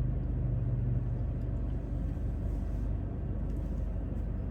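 Car's steady low rumble heard from inside the cabin, with a low hum that fades out about a second in.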